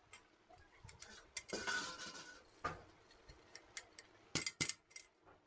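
A metal dish clinking and scraping against a large metal pot as cooked rice is scooped. A scraping swish comes about a second and a half in, and a quick cluster of sharp clinks comes near the end.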